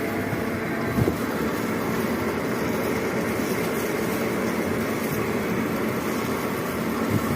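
Lathe running steadily through a boring cut, with a brief knock about a second in.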